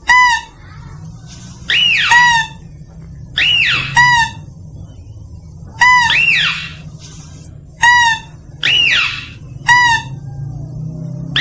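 Mouse-deer (kancil) lure call: high-pitched calls repeated about once a second, short clipped calls alternating with calls that rise and fall in pitch, over a faint low hum.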